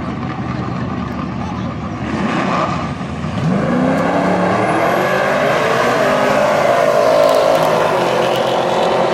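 Buick Grand National and Pontiac Trans Am WS6 drag cars at the line with engines running, then launching about three seconds in. The engine pitch rises as they accelerate away, and the sound stays loud as they run down the track.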